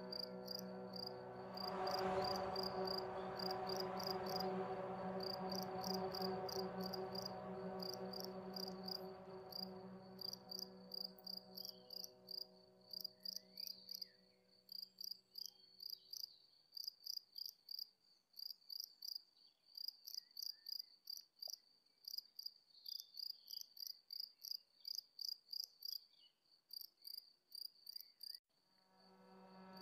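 Crickets chirping in a steady rhythm of high, pulsing trills, about two a second. A soft sustained drone chord sounds with them at first and fades out about halfway through, returning just before the end.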